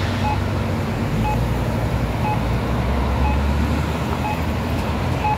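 Accessible pedestrian signal at a crosswalk giving its short waiting beep about once a second, six times: the locator tone that sounds while pedestrians wait for the walk signal. Road traffic runs underneath, with a vehicle passing about three seconds in.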